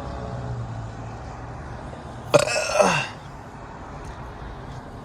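One loud burp about two seconds in, dropping in pitch over most of a second, over a steady low hum.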